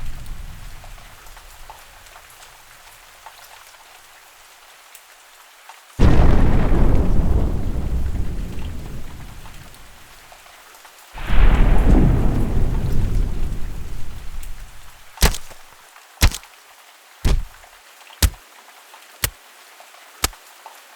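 Designed impact sound effects: two heavy booms about six and eleven seconds in, each dying away in a long rumble over several seconds, then six short sharp hits about a second apart, over a faint rain ambience.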